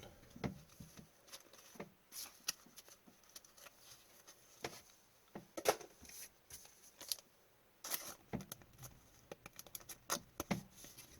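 Hockey trading cards being handled and flipped through by hand: irregular soft clicks and light rustles as the cards slide over one another.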